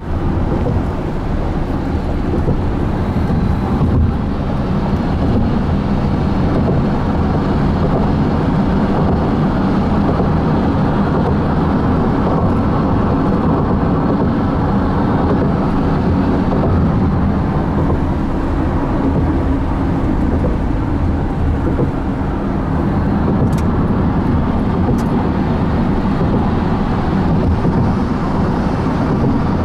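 A car driving along a freeway, heard from inside the cabin: a steady road-noise drone with no change in pace.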